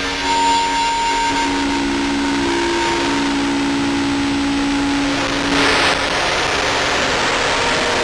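Live electronic ambient-noise music: sustained droning synth tones over a dense wash of noise. About six seconds in, a swell of noise fades as the held tones drop out, and a thin tone sweeps slowly upward.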